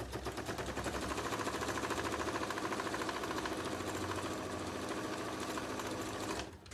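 Electric domestic sewing machine running at a steady fast speed with a rapid, even stitching rhythm as it sews a seam through layered fabric and batting. It stops suddenly near the end.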